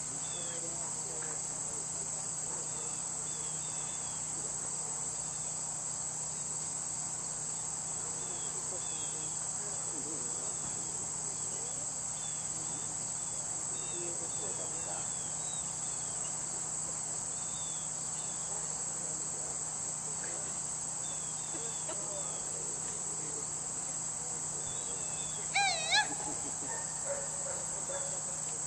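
Steady high-pitched chorus of crickets and other insects in the grass, with faint short bird chirps. About 26 s in, a person gives a short, loud two-part shout, the handler's recall call to the dog.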